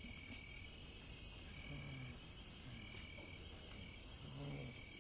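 Faint night chorus: insects chirping steadily, with a short high pulse repeating about once a second, and low frog croaks now and then.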